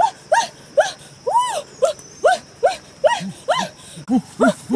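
A fast run of short, rising-and-falling high-pitched vocal cries, about three a second, with lower, shorter cries joining in near the end.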